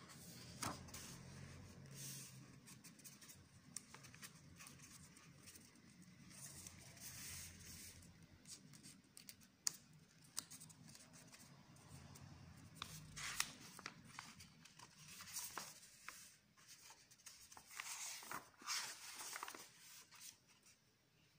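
Pages of a sewn, leather-bound book being turned by hand: faint rustling swishes and soft flaps of stiff parchment paper, one after another, with a few louder flicks past the middle.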